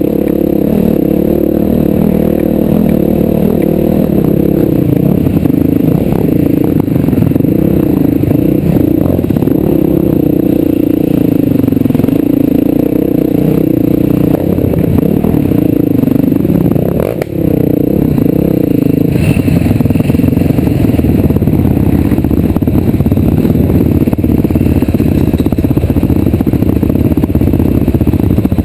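Vehicle engine running steadily under load, its pitch wavering up and down, with clattering and rattling over it; the engine note drops briefly about two-thirds of the way through.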